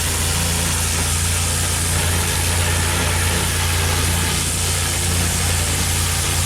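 Pressure washer engine running steadily at a constant pitch, with a dense hiss over it.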